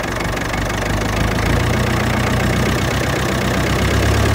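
Ferguson TEF-20 tractor's four-cylinder diesel engine running steadily at low speed with a diesel clatter, growing a little louder and fuller about a second and a half in. It is settling into a steady idle after a cold start.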